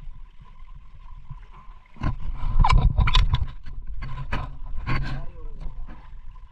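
Small boat under way at sea: a steady hum and low rumble, with loud rushing bursts of water and wind noise from about two seconds in until shortly before the end.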